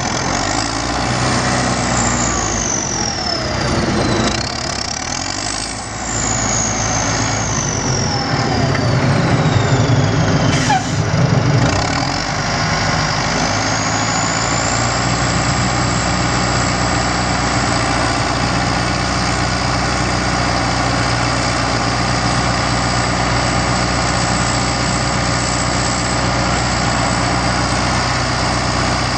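Caterpillar 130G motor grader's diesel engine running. In the first twelve seconds a high whine glides down and up and the engine grows louder around ten seconds in; after that it settles into a steady idle with a constant high whine.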